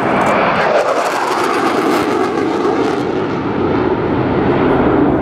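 Loud jet noise of a Panavia Tornado GR4's twin RB199 turbofans as the jet flies past. The pitch slides down about a second in, and the hissing top end fades after about three seconds as it moves away.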